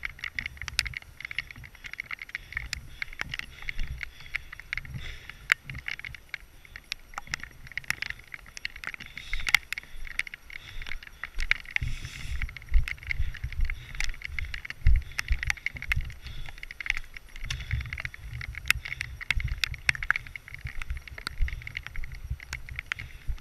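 Footsteps and gear rattling as an airsoft player moves: irregular sharp clicks and knocks throughout, over a low rumble that comes and goes.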